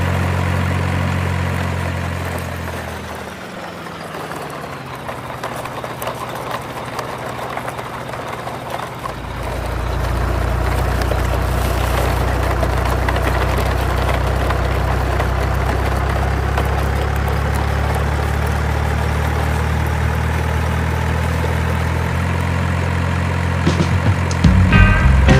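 Heavy truck engine idling steadily. About two to four seconds in, its pitch sinks and it fades away, then it comes back steady at about nine seconds. Music begins near the end.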